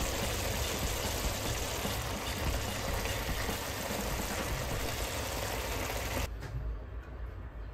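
Tomato sauce with eggs in it simmering in a frying pan, a steady bubbling sizzle. It cuts off abruptly about six seconds in, leaving a quieter background.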